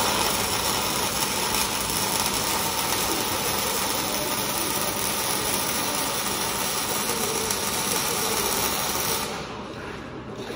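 MIG welding arc sizzling steadily as a bead is run on a steel frame. It cuts off about nine seconds in.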